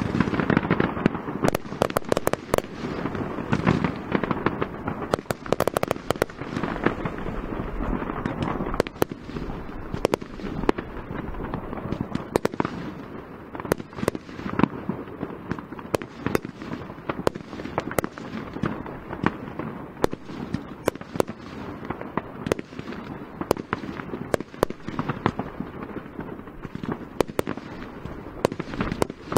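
Fireworks display: aerial shells bursting in quick, irregular succession, with many sharp bangs and crackling over a continuous rumble. It is busiest in the first few seconds.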